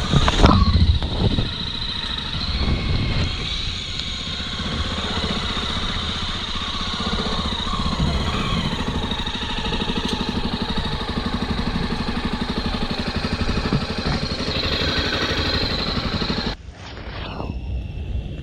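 Motorcycle engine running steadily under way, with wind and road noise; it drops away suddenly about a second and a half before the end.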